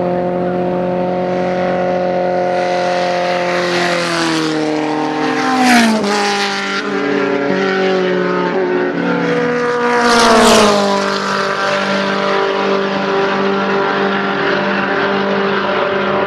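Engines of several 1400 cc Midget race cars running hard on the circuit. Two cars pass close by, about five seconds in and again about ten seconds in, each louder as it comes and dropping in pitch as it goes past.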